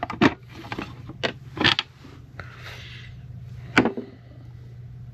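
A few irregular sharp clicks and knocks of small parts and tools being handled on a workbench, over a steady low hum.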